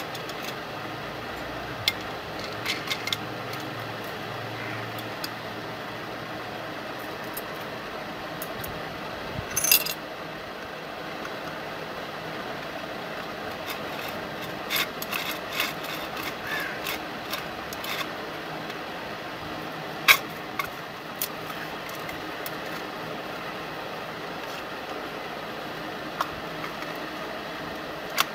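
Small metal clinks and taps of nuts, washers and bolts being handled and fitted on a steel drill-stand carriage plate, scattered over a steady background hum; the sharpest clinks come about ten and about twenty seconds in.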